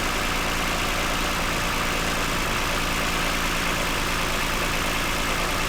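2009 Toyota Highlander engine idling steadily, running smooth and quiet.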